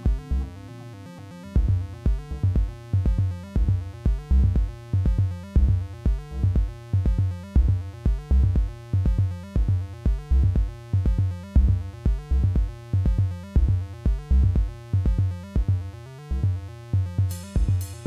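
Live electronic music from hardware synthesizers: a repeating, pulsing synth bass line drops out briefly, comes back in about a second and a half in, and runs on steadily. Hi-hats and cymbals come in near the end.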